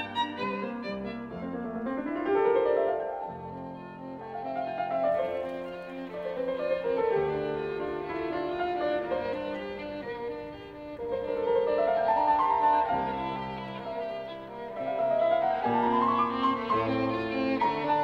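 Instrumental background music: a violin melody over piano, its phrases sweeping up in pitch several times.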